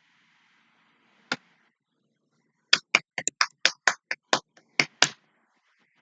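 One sharp click, then a fast, irregular run of about a dozen sharp clicks or taps lasting a little over two seconds.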